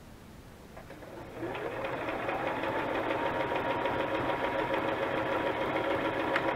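Electric sewing machine starting to stitch about a second in, its motor whine rising in pitch as it comes up to speed, then running steadily.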